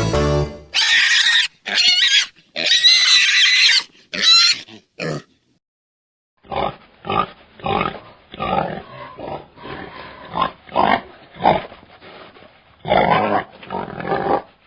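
Pigs squealing in several high-pitched cries over the first few seconds, then, after a short pause, grunting in a run of short grunts about two a second.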